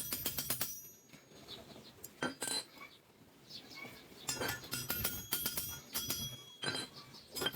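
Small metal pieces clinking and clattering against each other in quick clusters of sharp, ringing strikes, busiest in the second half.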